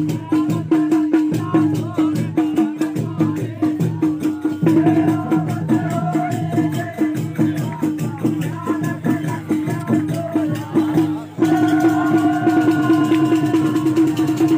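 Indian devotional folk music with a fast, steady beat and jingling, rattle-like percussion under a held melody. The sound changes abruptly twice, about a third of the way in and again near the end.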